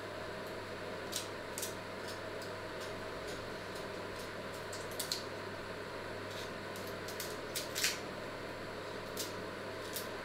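Small crisp crackles and clicks of peel being picked off by hand over a metal colander, about nine spread through, the loudest nearly eight seconds in, over a steady low hum.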